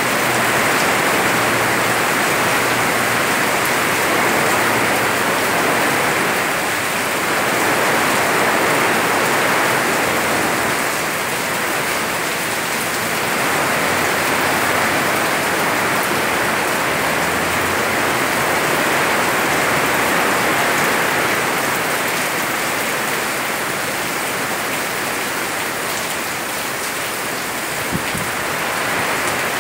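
Heavy rain pouring down steadily, with gentle swells in intensity.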